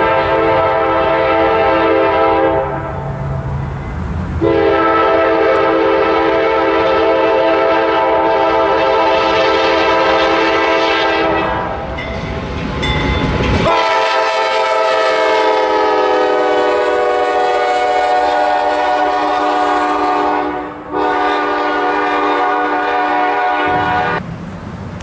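CSX freight diesel locomotive's air horn sounding a long-long-short-long grade-crossing signal over the train's rumble, the last long blast dipping slightly in pitch as the locomotive draws near and passes.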